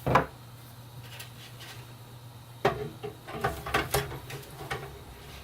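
Hard drive and its case mounting being handled: a sharp knock right at the start, then about two seconds of irregular clicking and clattering from about two and a half seconds in, over a faint low hum.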